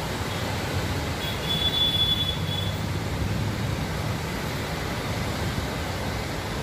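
Floodwater rushing through the raised gates of a river barrage: a steady, even rush of noise with a low rumble underneath.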